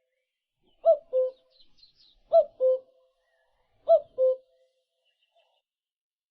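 A bird repeating a low two-note call, a higher note falling to a lower one, four times about a second and a half apart, with faint high chirps from other birds in between.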